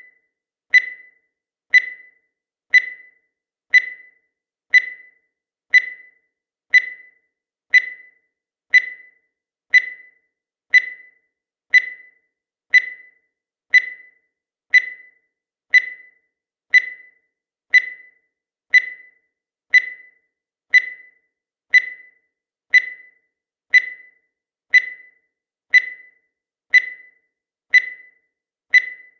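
Countdown timer sound effect: a short, sharp tick once every second, each fading away quickly, at a steady even pace.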